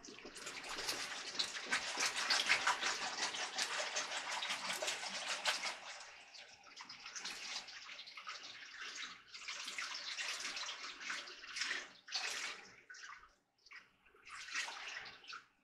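Water poured from a plastic gallon jug into a slow cooker's crock over a roast and vegetables: a steady pouring stream for about six seconds, then coming in uneven spurts until it stops near the end.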